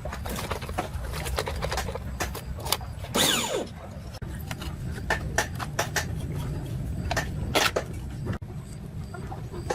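Repair clatter of small tools and parts: scattered clicks and knocks over a low steady hum, with a short squealing scrape falling in pitch about three seconds in and a sharper knock near eight seconds.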